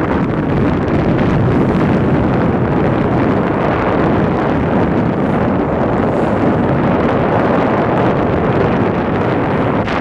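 Wind buffeting the microphone on the deck of a moving Star Ferry, a loud steady rush with the ferry's running noise and the water blended in.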